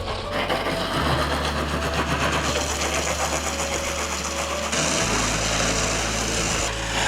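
A motor or engine running steadily, with a low hum that shifts abruptly about a second in and again about five seconds in.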